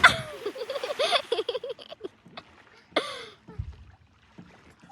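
Young women laughing and giggling in quick pulses, with a short shriek about three seconds in.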